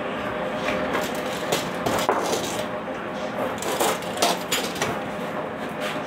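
Scattered light knocks and scrapes from a fibreboard panel and tape measure being handled, over a steady background hum.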